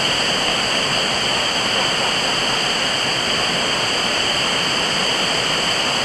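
Small waterfall pouring over rocks close by: a steady, unbroken rush of water.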